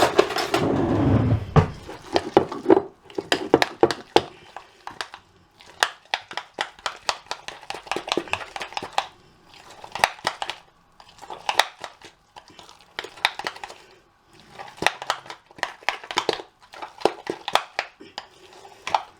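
A spoon stirring and scraping through a thick blended chicken liver pâté mixture in a bowl, in bursts of clicks and scrapes with short pauses between.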